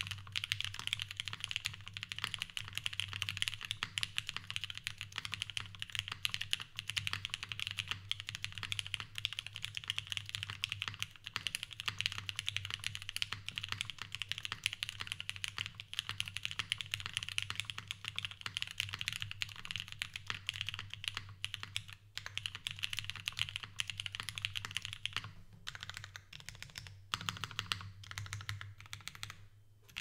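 Continuous typing on a custom PLX mechanical keyboard with lubed, filmed NK Silk Black linear switches (Cherry MX tops), a gasket-mounted POM plate with no foam, and GMK keycaps: a dense, steady stream of keystroke clacks, with a few brief pauses near the end.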